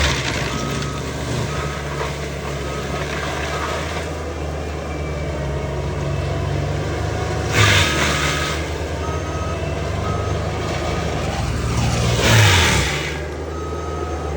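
Wacker Neuson ST45 skid steer running steadily under load with an FAE forestry mulching head, its reversing alarm beeping on and off about twice a second. There are two louder rushing surges, about 8 and 12 seconds in; the second one drops in pitch as it fades.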